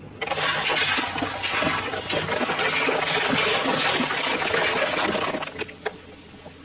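Full plastic cola bottles being crushed under a car tyre and punctured on a bed of spikes: crackling plastic and carbonated soda gushing and fizzing out. It starts sharply just after the start and dies away about five seconds later.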